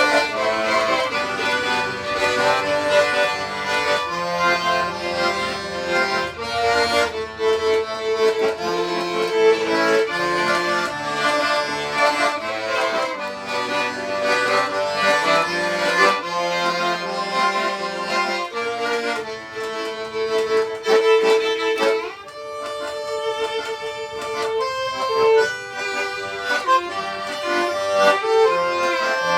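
Instrumental music played live by a duo: melody notes held and changing over an accompaniment, with no singing.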